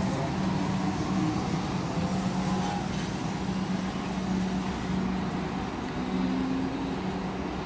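Comeng electric suburban train pulling into a station platform, a steady rumble of wheels and running gear with a low motor hum, easing slightly as it slows.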